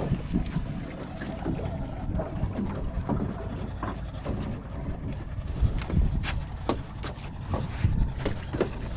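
Wind buffeting the microphone aboard a fishing boat, a steady low rumble, with scattered knocks and clicks throughout.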